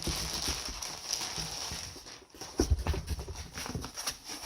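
Packaging rustling and crinkling as a boxed set of aftermarket hood latches is unpacked, with a cluster of dull knocks a little past halfway as the parts are handled and set down.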